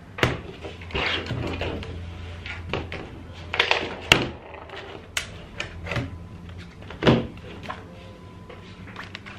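Plastic laptop case being handled on a desk: the lid of a Lenovo G400 shut, the machine turned over, and its battery unlatched and pulled out. The result is a series of sharp plastic clicks and knocks, the loudest about four and seven seconds in, with brief rubbing and scraping between them over a low steady hum.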